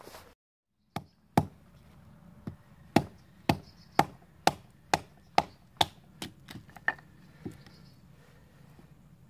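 A bushcraft knife being batoned through a piece of firewood with a wooden baton: a run of sharp wooden knocks, about two a second, that stops about three quarters of the way through.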